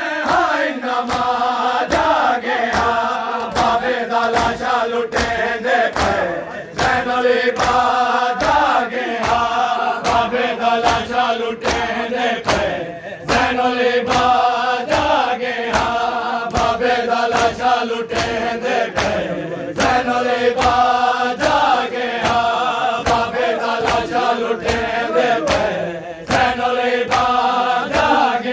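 A group of men chanting a nauha lament in unison over the steady slaps of mourners beating their chests in matam, about two beats a second.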